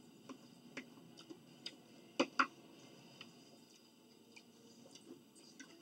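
Scattered small clicks and taps of people eating at close range, with two louder clicks close together about two seconds in.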